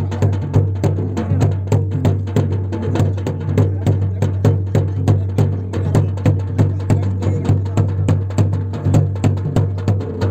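Music with a fast, steady drum beat and sharp, clicky strikes over a constant low drone.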